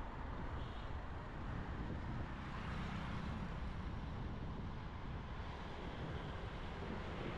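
Steady city road traffic noise, with a constant low rumble and no single vehicle standing out.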